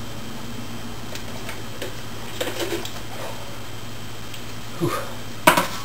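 Someone drinking broth from a plastic bowl: faint sips and swallowing clicks over a steady low hum. Near the end come a short low grunt and a brief, louder noisy burst.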